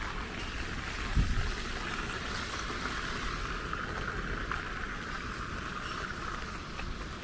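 Steady hiss of light rain with a low rumble underneath, and a brief low thump about a second in.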